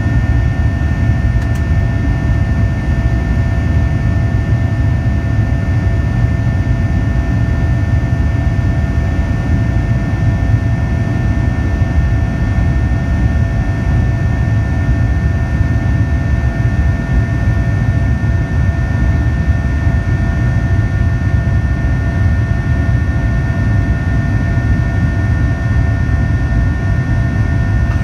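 Boeing 737-800's CFM56-7B turbofan at climb thrust, heard from inside the cabin just ahead of the engine: a steady, even rumble with several steady whining tones over it, the buzz-saw noise of the fan blade tips turning faster than sound.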